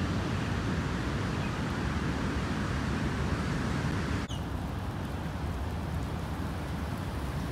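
Steady outdoor noise of the Umgeni River in flood, with a low rumble of wind on the phone's microphone. About four seconds in the sound cuts to a slightly quieter, similar noise, with a short high chirp just after.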